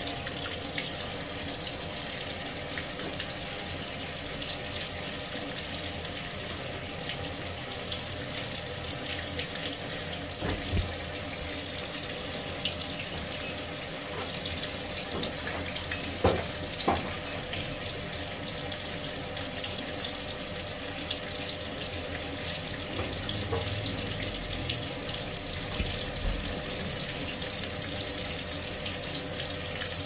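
Water pouring steadily from a Midea top-loading washing machine's inlet into its tub as the machine fills.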